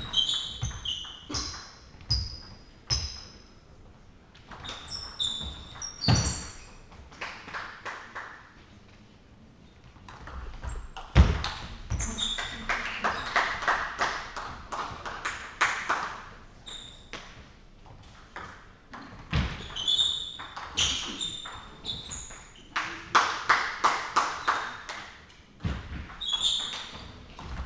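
Table tennis rallies in a large hall: the ball clicking back and forth off the bats and the table in quick runs, with short high pings. A lull comes between points, and there is one heavy thump about eleven seconds in.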